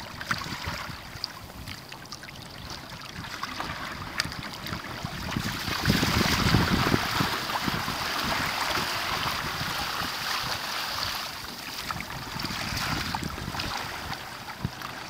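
Water rushing and splashing along the hull and outrigger floats of a Hobie Tandem Island sailing kayak under way, with wind on the microphone. The rush swells about six seconds in and eases off after about five seconds.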